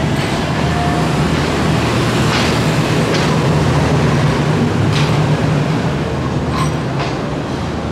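Passenger train departing, its coaches rolling past with a steady low rumble and a few sharp clicks of wheels over rail joints.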